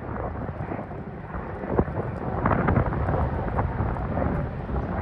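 Dassault Falcon 7X's three turbofan engines heard from the ground as the jet climbs out after takeoff: a steady low rumble with a few short crackles.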